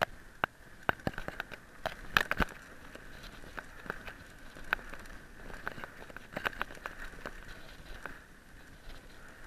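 Mountain bike rattling and clattering over a bumpy dirt trail: irregular sharp clicks and knocks as the bike and its handlebar-mounted camera jolt over ruts, most of them in the first few seconds, over a steady high buzz.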